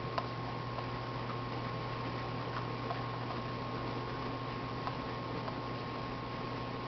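Steady hiss and low electrical hum with a faint steady high tone, broken by a couple of faint clicks.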